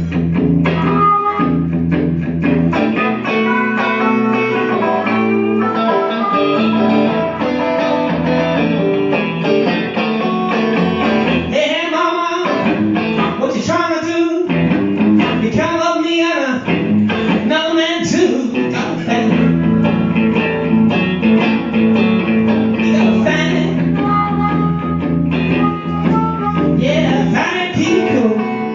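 Live electric blues: guitar over steady repeating low notes, with a lead part of bending, wavering notes in the middle stretch before the guitar pattern returns.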